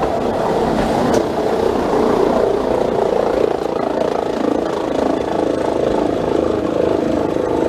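Electric rack-railway railcar (class 405.95) running past on its cogwheel track and pulling away: a steady whirring drone of its drive and cog gearing on the rack, with the wheels running on the rails. It eases off a little near the end.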